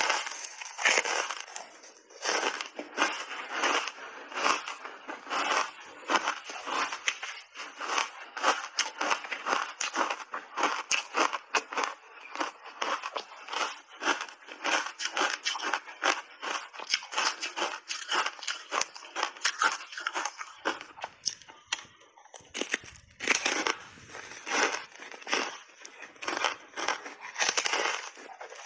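Close-miked crunching and chewing of a frozen berry ice bar: rapid, crisp crunches, thinning out briefly about three-quarters of the way through, then dense again with a fresh bite.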